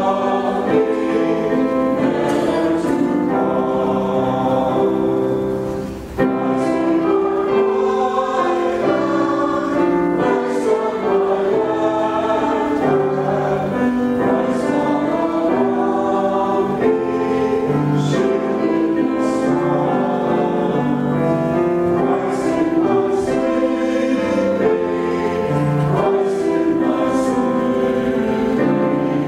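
Small mixed choir of men's and women's voices singing an anthem together in parts, with a brief break between phrases about six seconds in.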